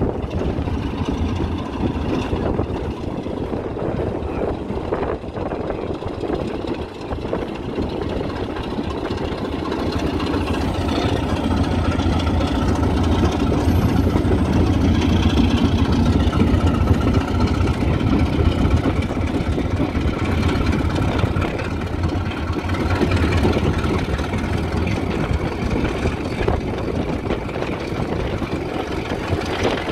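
Heritage railway diesel engine running steadily with a deep hum, growing louder about ten seconds in and easing back after about twenty seconds as it works.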